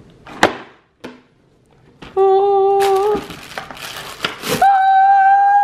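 A woman sings or hums long, steady held notes: first a lower note for about a second, then, after a pause, a note about an octave higher held for two seconds. In the gap between the notes, a cardboard chocolate box and its paper liner rustle as the lid is lifted, and a sharp snap comes about half a second in.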